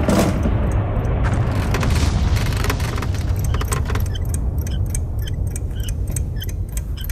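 A steady low rumble under a haze of hissing noise; about four seconds in the hiss drops away and rapid, fairly regular ticking comes in over the rumble.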